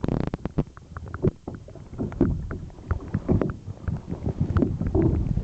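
Water sloshing and splashing around a kayak, heard as irregular low rumbles with short knocks and splashes.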